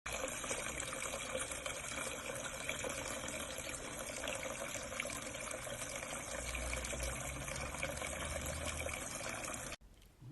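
Steady rushing of running water that cuts off suddenly near the end.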